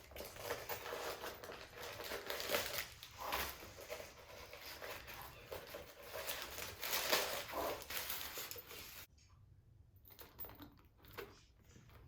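Crinkling and rustling of packing material being handled, stopping suddenly about nine seconds in, followed by a few faint clicks and taps.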